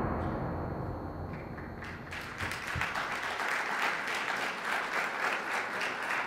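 A music track fading out, then an audience applauding from about two seconds in.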